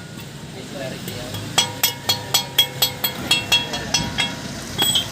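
A rapid run of about a dozen hammer blows on metal, roughly four a second, each one ringing briefly, then one more strike near the end.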